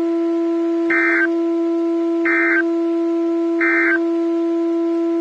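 Emergency Alert System end-of-message code on NOAA Weather Radio: three short buzzy digital data bursts, about a second and a half apart, marking the end of the warning. A steady hum runs under them.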